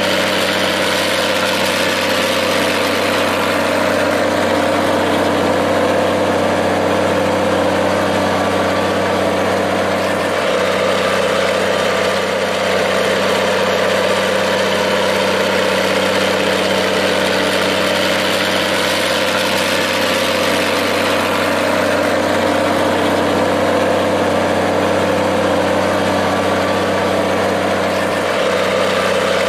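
Minneapolis-Moline tractor engine idling steadily.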